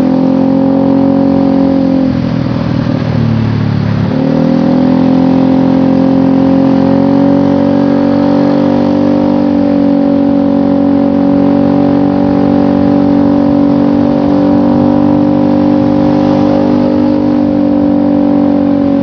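Motorcycle engine running through a Trioval long-header aftermarket exhaust, steady revs with an even pitch. About two seconds in the revs drop and waver, then pick back up about four seconds in and hold steady again.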